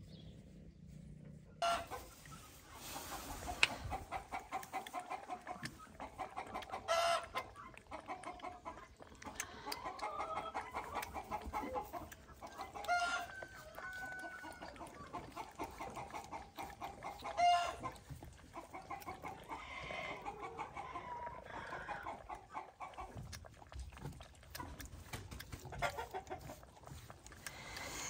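Domestic hens clucking, with short calls scattered throughout, among frequent small knocks and rustles.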